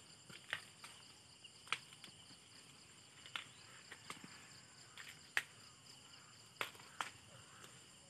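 Faint, steady chirring of insects, with about eight sharp clicks and snaps scattered through it.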